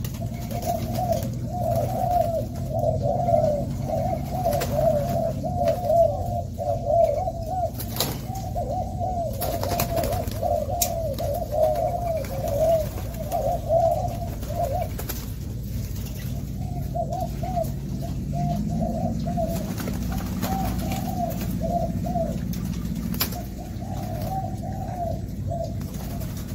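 A flock of spotted doves cooing, many coos overlapping in a near-continuous chorus. About halfway through it breaks off briefly, then picks up again more sparsely.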